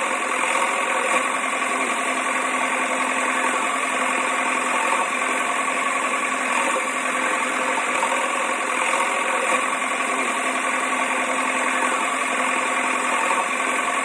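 Small motor running steadily, a continuous whirring with no deep rumble.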